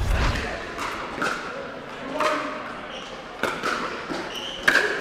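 A handful of sharp, irregular knocks of pickleball paddles hitting the plastic ball and the ball bouncing on the court, over a murmur of voices.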